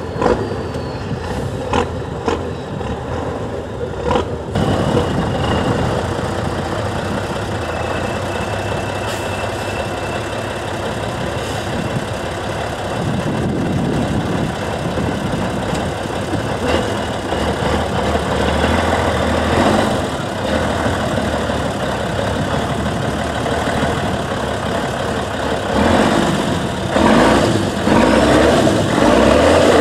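Engine of a Praga V3S 6x6 trial truck running under load as the truck crawls over steep off-road terrain. The revs rise near the end.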